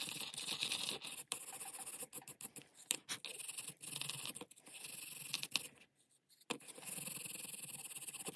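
Wire wool scrubbing light rust off a small metal frame: a scratchy rubbing in uneven strokes, with a short pause about six seconds in.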